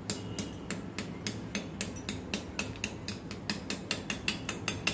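A metal spoon tapping a block of ice again and again, about three to four quick sharp taps a second, chipping pieces off it.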